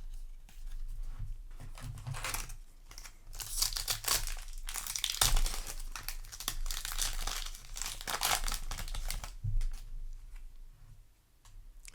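Foil booster-pack wrapper crinkling and tearing open in hands, in several rustling bursts that are busiest in the middle and die down near the end.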